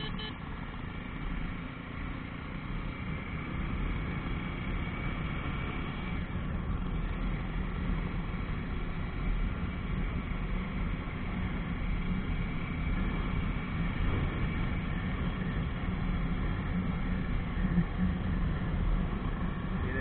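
Jawa 42 motorcycle's single-cylinder engine running steadily at cruising speed, mixed with wind and road rush on the bike-mounted action camera.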